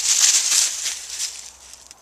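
Dry rustling and crackling made of many quick ticks, loudest in the first second and then fading away.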